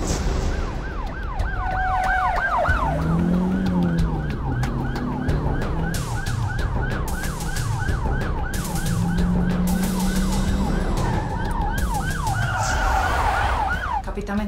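Police car sirens in fast yelp mode, about three rising-and-falling sweeps a second. A second siren overlaps near the start and again near the end.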